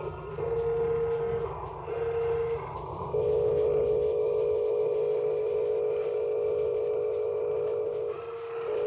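Whine of a radio-controlled construction model's small electric motors, running in two short spurts and then steadily for about five seconds, with a brief stop near the end.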